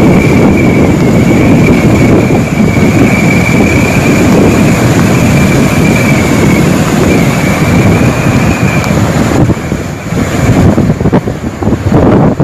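Hurricane-force wind blasting over the microphone in loud steady gusts, with a thin high whistle through most of it that dies away about nine seconds in.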